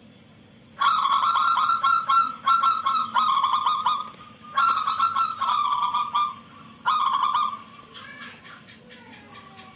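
Zebra dove (perkutut) singing shrilly in three bursts of rapid staccato cooing notes: a long phrase of about three seconds, a shorter one, then a brief one, then it falls quiet.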